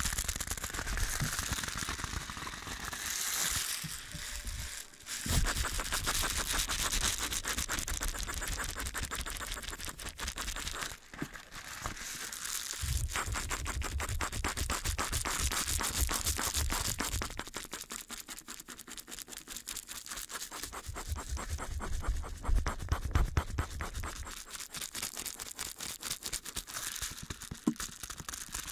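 Close-miked ASMR brushing: fast, dense, scratchy bristle strokes on or right at the microphone. They break off briefly twice, about 5 and 11 seconds in, and there is a low rumble in some stretches.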